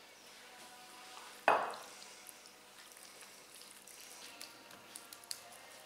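Faint wet handling sounds of hands rubbing oil into halved raw chicken on a wooden cutting board, with small scattered clicks and one brief louder knock about a second and a half in.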